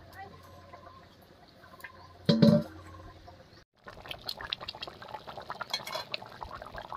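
A steel bowl set down over a dish of rice with a loud clang that rings briefly, about two seconds in. Then a pan of chicken curry boiling hard, a dense, steady bubbling.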